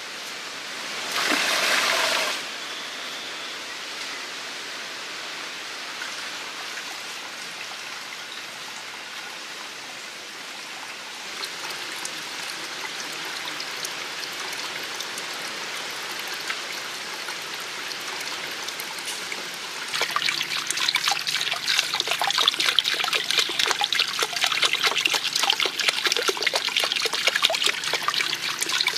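Water trickling and splashing from a bamboo spout into a small stone-lined pool, a steady running-water sound. A brief louder burst comes about a second in, and from about two-thirds of the way through the splashing becomes louder, with a dense, irregular patter of drips and spatters.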